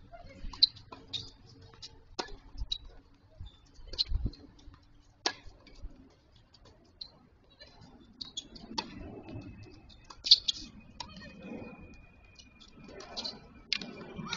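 Tennis ball being struck by rackets and bouncing on a hard court during play: a string of sharp, separate pocks spread a second or more apart, the loudest about ten seconds in.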